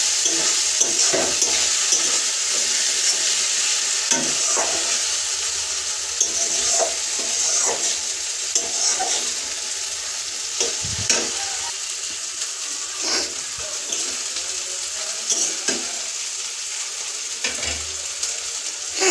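Spice paste sizzling as it fries down in oil in a metal karahi. A steel spatula scrapes and knocks against the pan at irregular moments as it is stirred.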